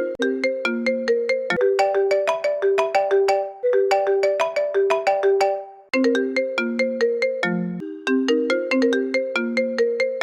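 iPhone-style incoming-call ringtone playing a quick melody of sharply struck notes and repeating its phrase. There is a brief break about six seconds in before the tune begins again.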